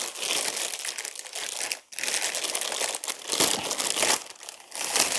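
Packaging crinkling and rustling continuously as a new tripod is unwrapped by hand, with a brief pause just before the two-second mark.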